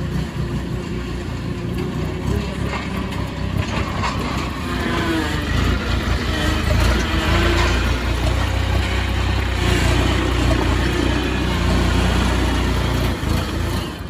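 Truck-mounted forklift engine running as the machine lifts and carries a pallet of sod rolls, getting louder and heavier from about five seconds in.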